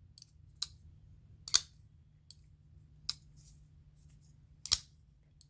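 Folding pocket knife being flicked open and closed, its blade snapping into place with a few sharp clicks spaced one to two seconds apart.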